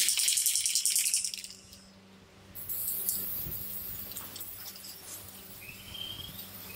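Aerosol spray-paint can rattling as it is shaken, then, after a short pause, hissing steadily as paint sprays out from about two and a half seconds in.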